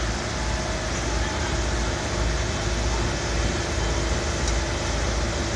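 Heavy vehicle engines idling, a steady low rumble and hum mixed with street noise.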